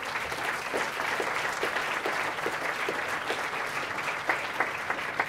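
Audience applauding: steady, dense clapping from a large room, with a few sharper single claps standing out near the end.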